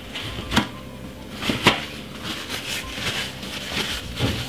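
Kitchen handling noises: two sharp clicks or knocks in the first two seconds, the second the loudest, then lighter knocks and rustling as things are moved about on the worktop.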